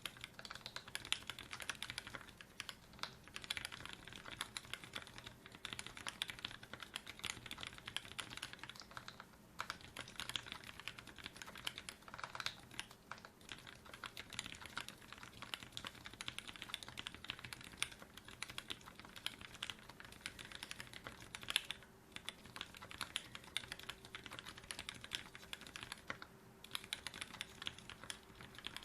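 Continuous fast typing on a mechanical keyboard with Fei-housing switches under Cherry top housings, 60 g TX springs and GMK Oblivion doubleshot keycaps: a dense, irregular stream of key clacks with a few short pauses.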